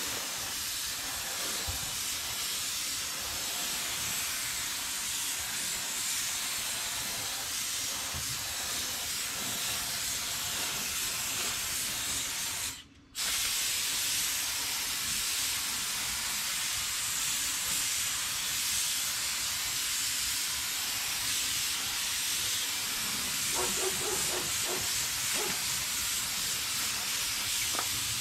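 Gravity-feed paint spray gun hissing steadily as compressed air sprays base coat. The hiss stops briefly about halfway through, when the trigger is let go, and then starts again.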